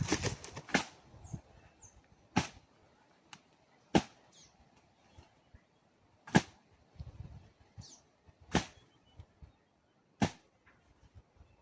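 Sharp, separate taps or knocks, about seven of them at uneven gaps of one to two seconds, over a quiet background.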